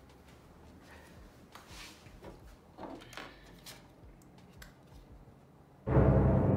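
Faint scattered clicks and light rustles of small parts being handled while a laptop is taken apart. Loud music with sustained tones starts suddenly near the end.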